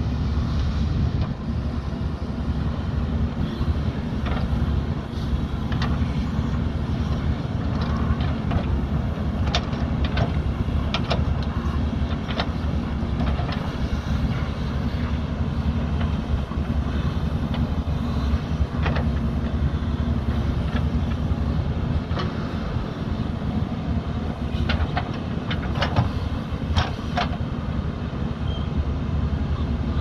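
JCB 3DX backhoe loader's diesel engine running steadily under load while the backhoe digs into an earth bank, with occasional sharp clanks and knocks.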